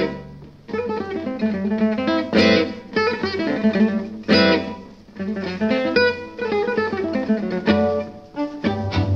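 Instrumental music of plucked strings, guitar-like, playing a run of quick notes with a few stronger struck chords.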